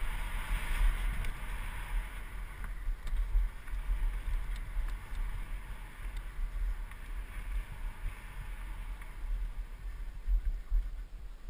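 Wind buffeting a helmet camera's microphone on a fast mountain bike descent, a steady low rumble, with the tyres rolling and hissing over dirt and leaf litter and a few short knocks as the bike rattles over bumps.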